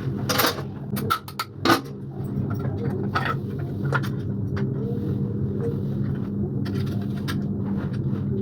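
A steady low mechanical hum with scattered sharp clicks and knocks, the loudest near the two-second mark, like hard parts being handled and set down.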